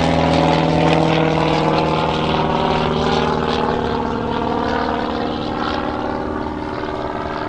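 Mooney Anomaly, a single-engine Mooney, flying past with a steady piston-engine and propeller drone that sinks slightly in pitch and fades as it moves away.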